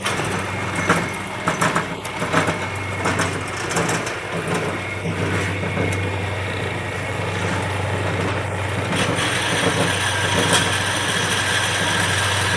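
Vintage Enco horizontal bandsaw running with its motor humming, the blade cutting into the clamped stock with a rough, irregular clattering grind. About nine seconds in the cutting turns steadier and hissier. The blade is not tight enough.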